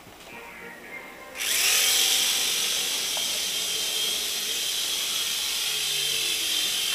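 Ecoman Microgear micro RC helicopter's tiny electric motors and rotor blades starting suddenly about a second and a half in, then a steady high whine and whoosh as it flies.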